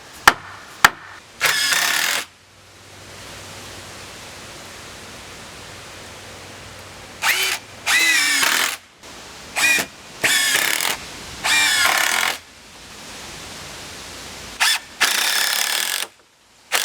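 Porter Cable 20V brushless cordless impact driver sinking 3-inch screws into 2x4s, in several separate bursts of one to two seconds. Each burst starts with a rising whine as the motor spins up into the hammering. A few sharp clicks come right at the start.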